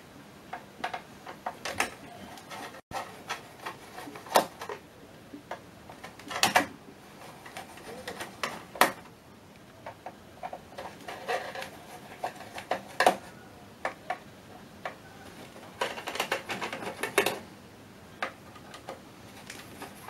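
Long hand screwdriver turning out the screws that hold the metal modules in a vintage Sperry autopilot rack: irregular clicks and scrapes of the tool in the screw heads and against the metal, some coming in quick clusters.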